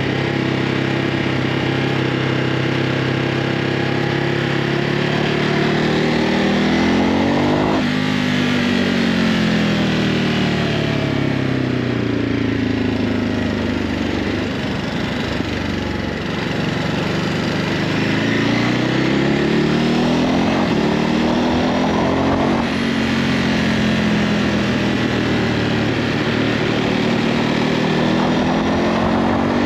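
Ducati Hypermotard 950's L-twin engine on its stock exhaust, under way: the revs climb steadily and drop off sharply about a quarter of the way in. They sag, climb again, break off sharply again about three quarters through, and then run fairly steady.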